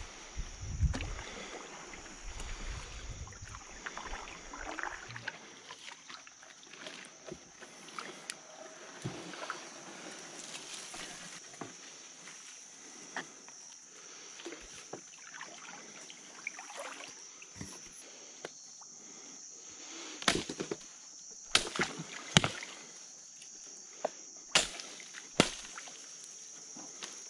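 A wooden canoe is paddled through flooded forest, with paddle splashes, sloshing and small knocks. Several loud sharp knocks come near the end. Wind rumbles on the microphone in the first few seconds, over a steady high-pitched hiss.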